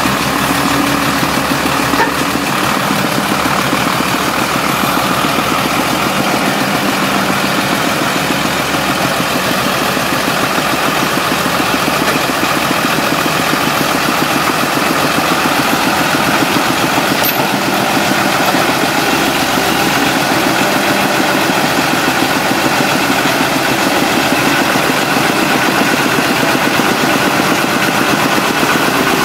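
Heavy diesel engines running steadily: a CAT 320D excavator and the Hino truck it is loaded onto. The excavator shifts its weight on the trailer, letting the truck's lifted front wheels settle back onto the road.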